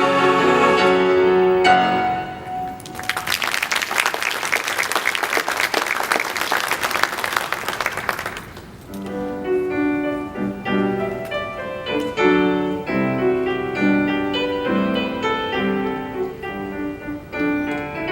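A choir's final held chord ends about two seconds in, followed by applause for about five seconds. Then a piano plays an introduction in steady chords.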